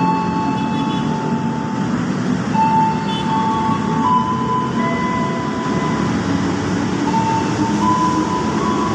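KRL Commuter Line electric train at the platform, a steady loud rumble overlaid with several high whining tones that shift in pitch every second or so.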